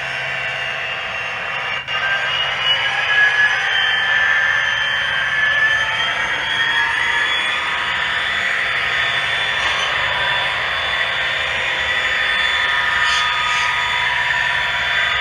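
HO scale diesel locomotive model's sound decoder playing diesel engine sound through its small onboard speaker as the locomotive runs under DCC control, the engine note rising slightly in pitch over the first few seconds and then running steadily.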